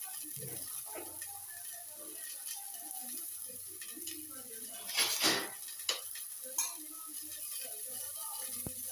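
Kitchen handling noises: small steel containers and utensils knocked and shifted, with a louder scraping rustle about five seconds in and a few sharp clicks after it, over a steady faint hiss.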